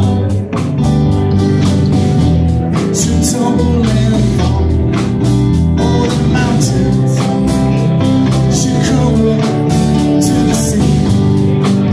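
Live blues band playing at full volume: electric guitars and keyboard over a steady drum-kit beat.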